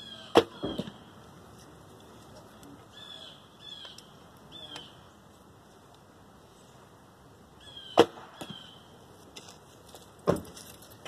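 Martin Mamba recurve bow being shot: a sharp snap of the string about half a second in, with a second knock a moment later as the arrow strikes the target, then another sharp shot snap about eight seconds in and a further knock near the end. Birds chirp in short falling notes in between.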